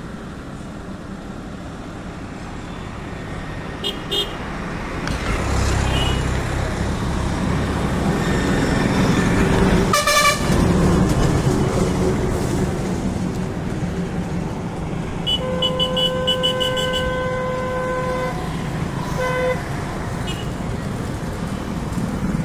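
Roadside traffic noise. A vehicle horn sounds once, held for about three seconds, then gives a short toot a second later. A brief sharp noise comes about ten seconds in.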